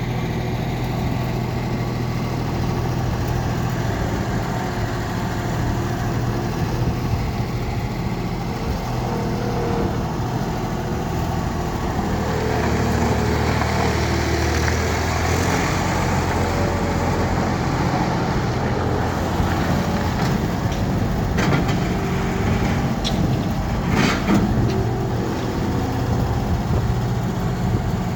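Bobcat 553 skid steer's diesel engine running steadily, its sound shifting stronger for a few seconds near the middle as it is revved or loaded. A few sharp knocks or clanks come about two-thirds of the way through.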